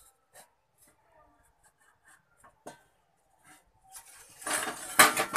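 Faint ticks, then about four seconds in a stainless-steel bowl used as a cover is lifted off a flat tawa pan and moved aside: a short burst of metal scraping and rattling with one sharp clank.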